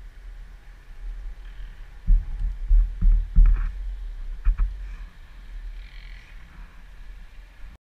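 Irregular low thuds and scuffs close to a helmet-mounted camera as a rider handles a dirt bike lying on its side in dry brush. The loudest knocks come in a cluster about two to five seconds in, and the sound cuts off just before the end.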